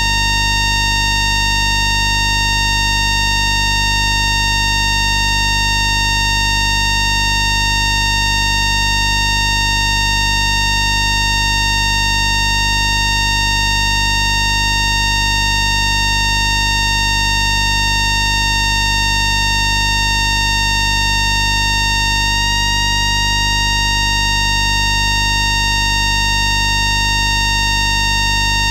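Electromagnetic whine of an FS ALe642 railcar's static converter, picked up by an inductor coil pressed against the machine-room wall rather than by a microphone. It is a steady buzz made of many fixed tones over a strong low hum, and about 22 seconds in some of the higher tones step up slightly in pitch.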